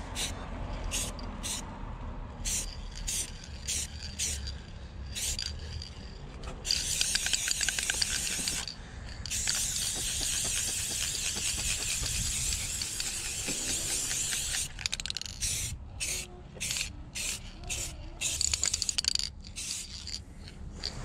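Aerosol spray-paint can hissing as gold paint goes onto a metal panel over primer. First come many short quick sprays, then two long continuous passes, then short sprays again near the end.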